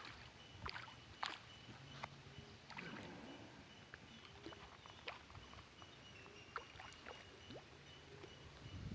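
Faint, irregular splashing and sloshing of water as an elephant bathes.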